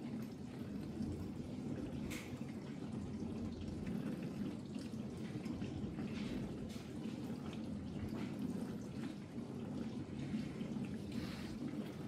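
Ariston dishwasher running its built-in test programme: a steady low rush of water moving inside the tub, with a few brighter splashes.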